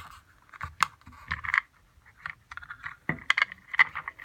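Irregular clicks and light knocks of a plastic device and its housing being handled and fitted together.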